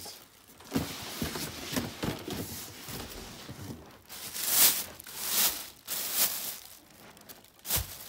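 Clear plastic packaging bag rustling and crinkling in several loud surges as a petrol jackhammer is handled in it, with a dull thump near the end as the machine is set down on the floor.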